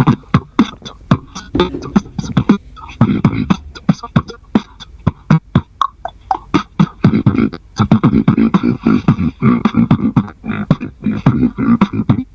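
A person's voice making rapid percussive mouth sounds, sharp clicks and pops mixed with short hums, in a quick uneven rhythm.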